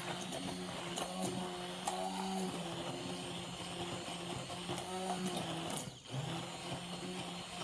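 Small electric kitchen mixer running steadily while blending pancake batter in a bowl. About six seconds in it stops for a moment, then restarts and picks up speed again.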